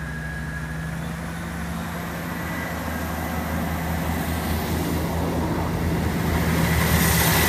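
Class 158 diesel multiple unit moving past close by, its diesel engines droning steadily under the rising rumble of the train, which grows louder all the way through as it draws level.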